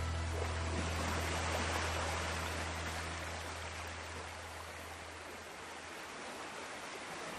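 Steady rushing-water noise, like a stream or waterfall, with a low sustained note from the backing music fading out about five seconds in.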